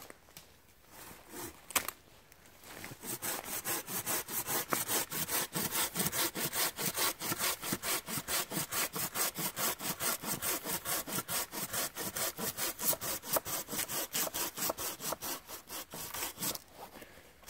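Hand pruning saw cutting through a live hazel stem: fast, even back-and-forth strokes that start about three seconds in and stop near the end.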